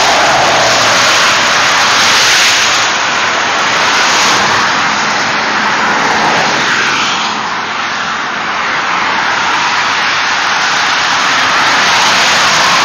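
Freeway traffic passing close by at highway speed: a steady rush of tyre and engine noise from cars going past, easing a little about two-thirds of the way through.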